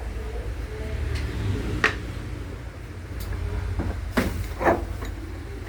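A few sharp knocks and clatters of metal tools and parts being handled on a workbench, over a steady low hum.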